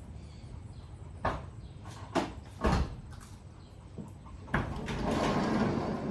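A few sharp knocks, then a thump followed by about a second and a half of rolling, scraping noise.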